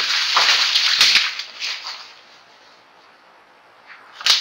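A tapir crashing off through dry leaf litter and twigs: a loud rustling, crackling rush with a few snaps that fades out after about two seconds, followed by a single sharp snap near the end.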